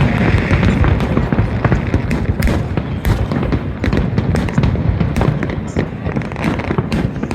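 Fireworks display going off: a dense run of sharp bangs and crackles over a constant low rumble.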